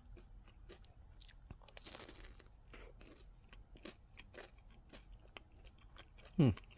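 Chewing a bite of a Nestlé Drumstick ice cream cone, with many small crunches from the sugar cone and chocolate coating. Near the end a short hum of the voice falls in pitch.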